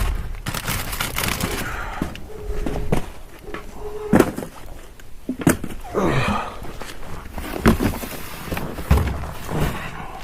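Rummaging through discarded packaged food in a dumpster: cardboard boxes and packages knocking, thudding and rustling as they are picked up and moved.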